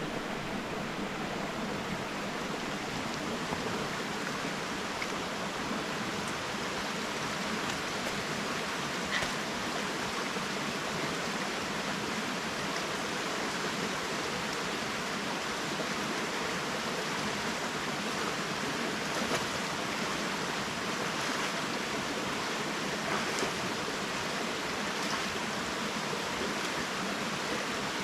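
Steady rush of a waterfall, water falling and running in an even hiss-like roar.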